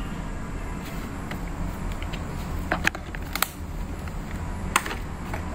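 Sharp clicks and knocks of parts being handled and fitted back onto a Makita miter saw's blade spindle and gear housing, about three loud ones with smaller ticks between, over a steady low hum.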